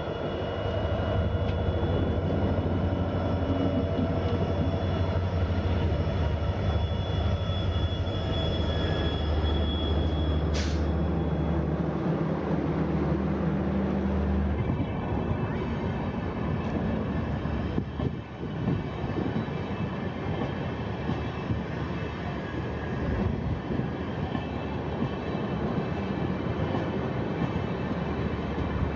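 Indian Railways diesel locomotive passing close by with its engine running, a strong low hum, which about halfway through gives way to the steady rumble of the passenger coaches rolling past on the rails. A brief high squeal is heard once, shortly before the engine sound stops.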